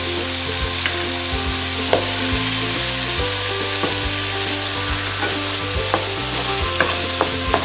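Egg frying in hot oil in a pan with chicken and garlic, sizzling steadily, with a spatula clicking and scraping against the pan every second or so.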